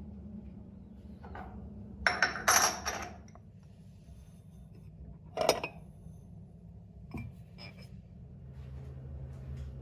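Hard objects being handled: a quick run of clinks and clatters about two to three seconds in, one sharp clink about halfway, and a few lighter clicks later, over a steady low hum.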